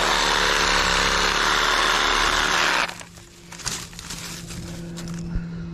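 A small power saw cutting woody growth, loud and steady for about three seconds, then running more quietly with a few sharp clicks.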